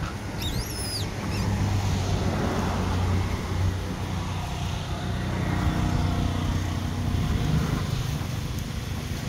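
Low steady hum of motor traffic, swelling and fading twice, with a brief high squeal that bends in pitch about half a second in.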